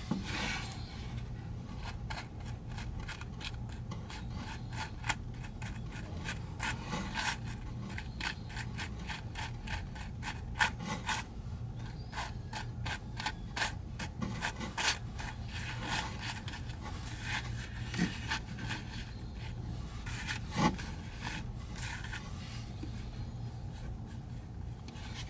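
Yellow-gold diamond tennis chain being moved about by hand on cloth: its links and stone settings click and rub in quick, irregular ticks, a few of them louder, over a steady low hum.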